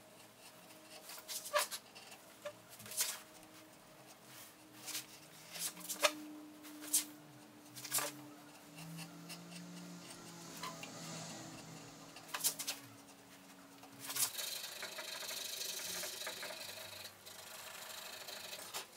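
Hand carving chisel and gouge slicing into wood in short, irregular cuts, each a crisp snick. About fourteen seconds in this gives way to a steady hiss of sandpaper being rubbed by hand over the carved wood.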